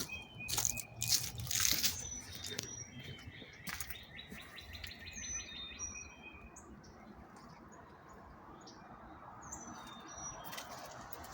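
Songbirds chirping: short high whistled notes repeated over and over, with a fast trill a few seconds in. A few handling knocks or steps in the first couple of seconds.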